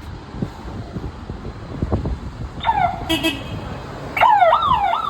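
Electronic siren sounding over street noise: a short held tone, then from about four seconds in a louder, fast up-and-down yelp, about three sweeps a second.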